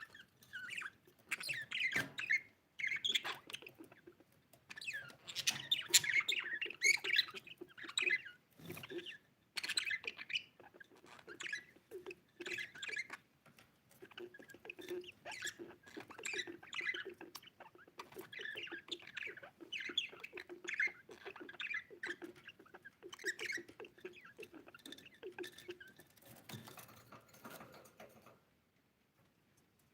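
Budgerigar chattering and chirping in quick squeaky bursts with short pauses, stopping shortly before the end.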